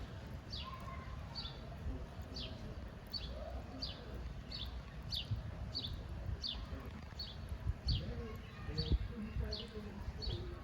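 A small bird chirping over and over, short falling chirps about two a second, over a low background rumble.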